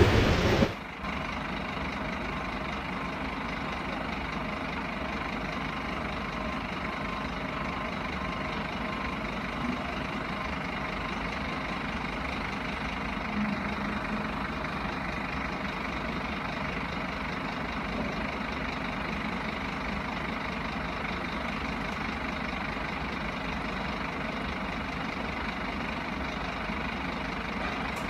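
Diesel truck engine idling steadily, a constant drone, while the trailer's automatic tarp is drawn over the load. In the first second a loud crash-like burst ends abruptly.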